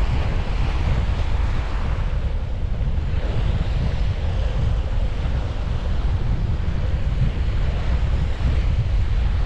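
Wind buffeting the microphone in a steady low rumble, over an even wash of sea surf.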